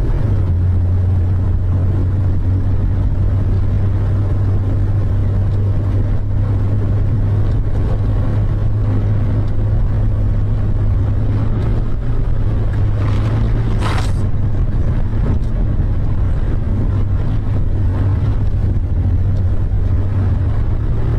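Steady low drone of a car being driven, engine and road noise heard from inside the car, with a brief higher rush about two-thirds of the way through.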